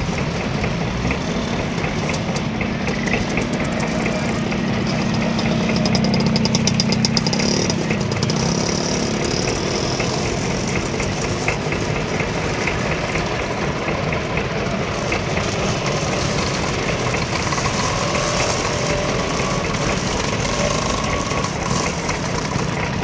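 A long line of vintage Lambretta and similar scooters riding past one after another, their small single-cylinder two-stroke engines buzzing in a steady overlapping drone. It is loudest about six to seven seconds in.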